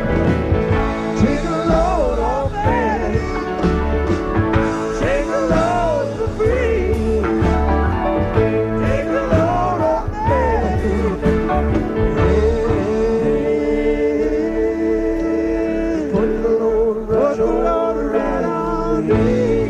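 Background music: a song with singing over guitar and a steady bass line.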